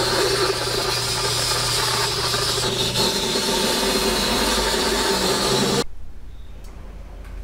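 Powder-coating gun spraying with a steady hiss of compressed air over a low hum. The hiss stops abruptly near the end, leaving a quieter low hum.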